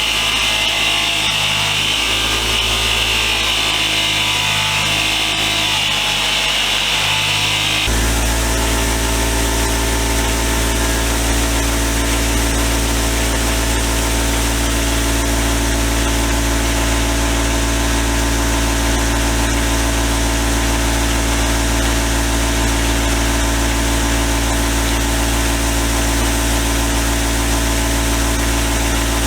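An electric power tool running steadily while rusty pliers are cleaned. For the first eight seconds or so a high hissing scrub rides over the motor. Then the sound changes abruptly to a steady, even motor hum.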